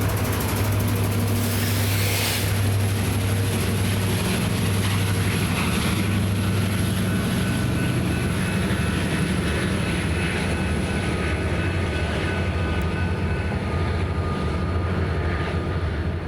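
BNSF empty coal train rolling past slowly, with the steady low drone of its diesel locomotives.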